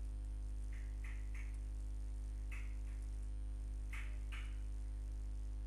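Steady low electrical mains hum on the recording, with a handful of faint computer keyboard clicks scattered through it.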